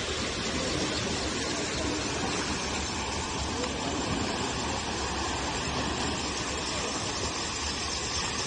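Fast-flowing floodwater rushing steadily through the gap where a railway culvert washed out, with faint voices in the background.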